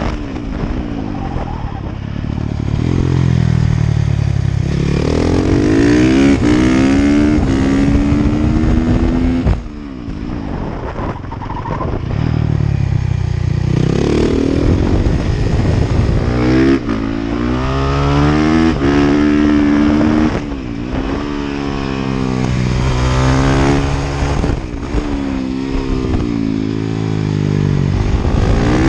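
Honda CRF450R's single-cylinder four-stroke engine under hard riding, heard from on the bike: the revs climb in repeated upward sweeps, then cut off sharply about five times as the throttle is shut for corners.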